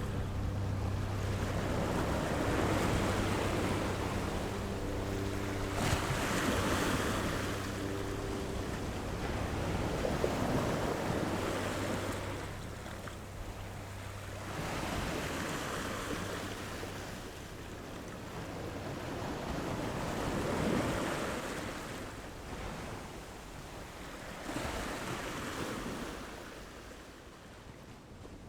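Baltic Sea waves washing onto the beach, the surf swelling and ebbing every four to five seconds and gradually quieter towards the end. A low steady hum sits under it and fades out about ten seconds in.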